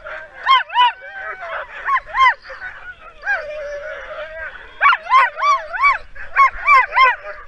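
Harnessed racing dogs yelping in quick, high-pitched series, with a drawn-out whine about three seconds in: the eager noise of skijor dogs straining to be let go at a race start.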